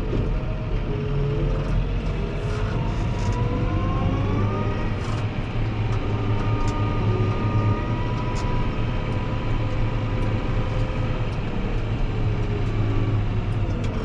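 Fendt 724 Vario tractor's six-cylinder diesel engine running steadily under way. A whine above the engine note rises in pitch about four seconds in and then holds steady, and faint ticks are scattered over it.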